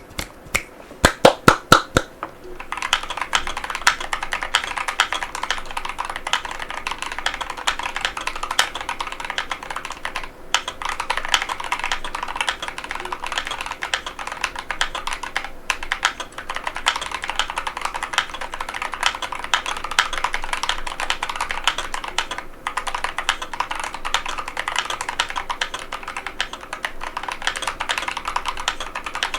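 Fast, continuous typing on a NovelKeys NK87 aluminum mechanical keyboard with KTT Matcha tactile switches and PBT OEM-profile keycaps, a dense run of clacky keystrokes. A handful of louder single clicks comes in the first two seconds before the steady typing starts, and the typing pauses briefly three times.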